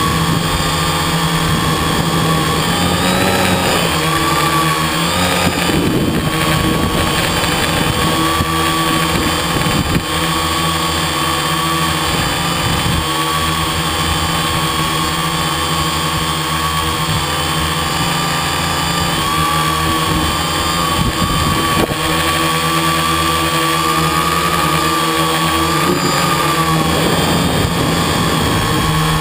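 Quadcopter's electric motors and propellers running steadily, heard from the camera on board: an even whine whose pitch wavers slightly as it manoeuvres.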